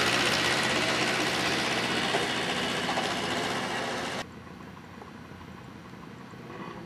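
Single-engine light aircraft at takeoff power on its takeoff roll, its piston engine and propeller running loud and steady. About four seconds in the sound drops suddenly to a fainter, steady engine drone.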